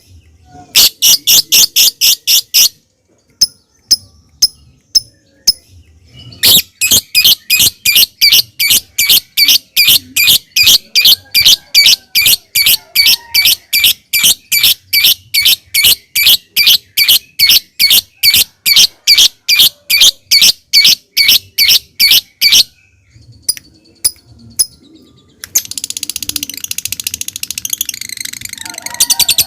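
Lovebird calling: sharp single ticks ('ngetik') and a long rhythmic run of repeated shrill chirps, about three or four a second, break off near the end into a dense, rapid chatter ('ngekek').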